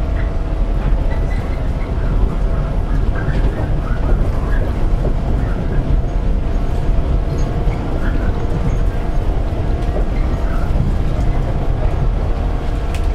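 Running sound inside a JR 115-series electric train's motor car on the move: a steady, loud rumble of wheels on rail with a steady humming tone and faint short squeaks.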